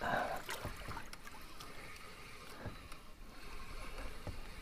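Water lapping against a kayak hull, with a few light knocks.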